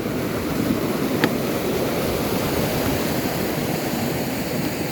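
Steady rush of a waterfall and river water, with a single short click about a second in.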